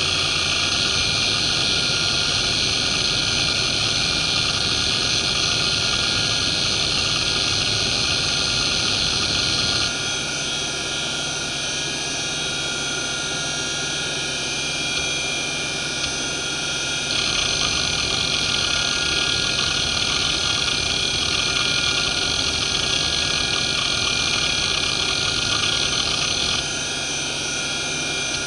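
Fuji Electric FK319A-240R 3.5-inch hard drive (1993, about 4400 rpm) seeking continuously under a benchmark: rapid head-actuator chatter over the steady whine of its spindle. The uploader says this drive's bearings are pretty bad. The noise gets quieter about ten seconds in, louder again a few seconds later, and quieter near the end as the test moves between stages.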